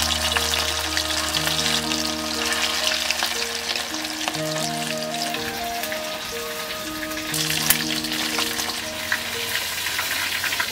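Chicken pieces sizzling as they deep-fry in hot oil in a pot over a wood fire, stirred with a metal ladle, with one sharp knock about eight seconds in. Background music plays a slow melody underneath.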